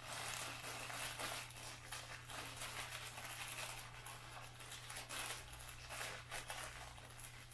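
Small yellow foam Nerf Rival balls being emptied from a thin plastic bag into a large plastic hopper: a continuous light patter of many small ticks, mixed with the crinkling of the bag.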